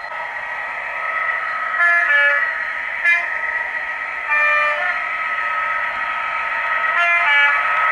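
Sound decoder of a Bachmann OO-gauge Class 66 model locomotive playing its diesel engine sound through the model's small speaker, with four short horn blasts about 2, 3, 4.5 and 7 seconds in.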